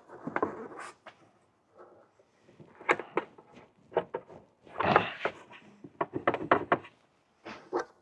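Plastic taillight housing of a 2013 Jeep Grand Cherokee clicking and knocking as it is tugged and worked loose from its mounting clips. There is a series of sharp clicks, some in quick clusters, and a longer scraping rattle about five seconds in.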